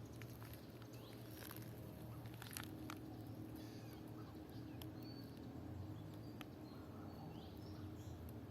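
Faint outdoor ambience: a few short, high bird chirps and scattered small clicks over a low steady hum.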